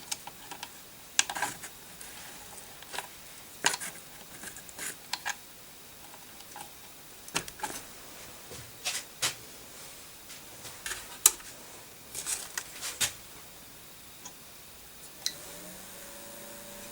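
Irregular sharp clicks and taps from handling computer hardware on a workbench, spaced from a fraction of a second to a couple of seconds apart.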